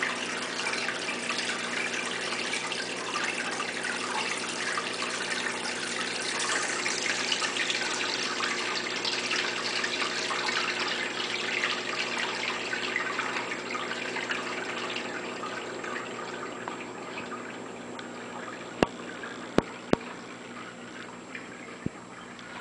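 Aquarium sump with water splashing and gurgling as it falls from the PVC drain pipes into its glass chamber, over a steady low hum. The splashing eases off in the last few seconds, and a few sharp clicks come near the end.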